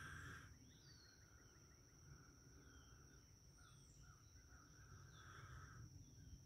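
Near silence: faint outdoor ambience with a few short, high, falling bird chirps over a steady high insect hum.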